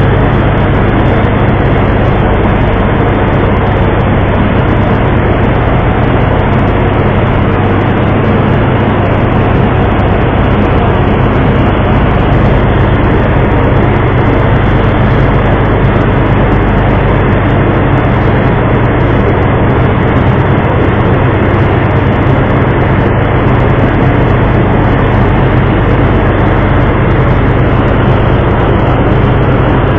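Ship's engine running steadily with a low hum, under a constant rushing noise.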